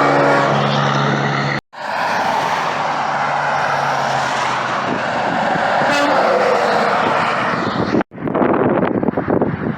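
Highway traffic passing close by. A steady low drone is cut off about a second and a half in. Then comes the road and engine noise of a passing vehicle, whose whine falls in pitch as it goes by. Near the end, wind buffets the microphone.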